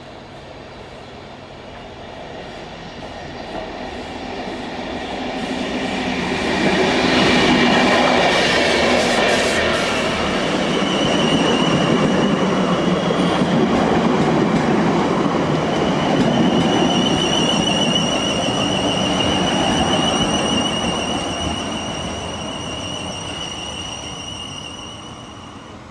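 Electric multiple-unit passenger train running through the platform. The rumble builds over several seconds to a loud peak. A high, slightly wavering whine then sits over the running noise for about ten seconds before both fade as the train draws away.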